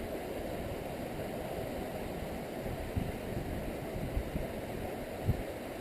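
Stream water running steadily, with a few short low thumps.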